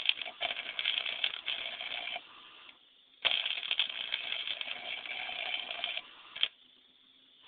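MIG welding arc crackling in two runs, about two and three seconds long, with a short burst near the end.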